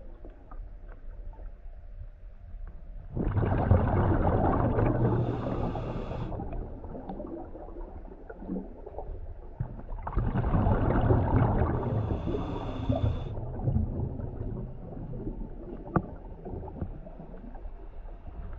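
A scuba diver's exhaled breath bubbling out of the regulator, heard underwater: two long bursts of bubbles, one a few seconds in and one about ten seconds in, each lasting about three seconds. A single sharp click near the end.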